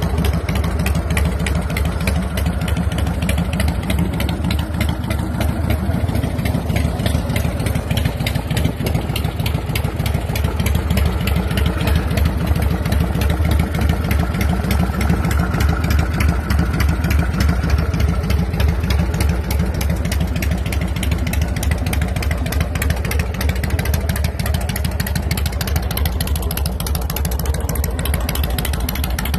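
Harley-Davidson Evolution V-twin on a custom Softail chopper idling steadily through fishtail exhaust pipes, with a quick, even beat of firing pulses.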